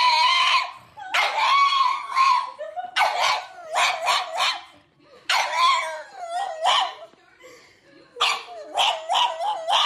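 Black pug howling and yowling in a string of wavering, drawn-out calls. Some calls are held long and others break into quick short yips.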